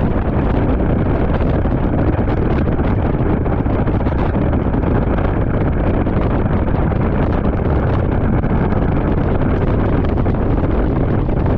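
Steady wind rushing over the microphone of a motorcycle-mounted camera while the bike rides along at an even pace, with motorcycle road noise beneath it.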